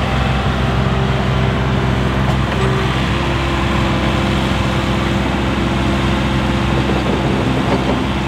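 Engines of compact construction machines running under load, a Vermeer CTX100 stand-on mini track loader among them: a steady, loud engine drone with several pitched tones that shift a little as it works the dirt.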